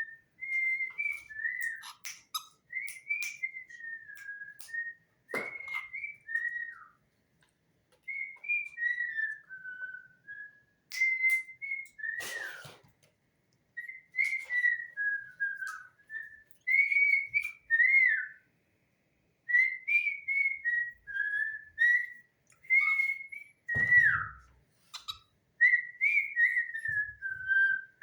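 A person whistling a tune to pet cockatiels in a clear, pure tone, in short gliding phrases with brief pauses. A few sharp clicks cut in now and then.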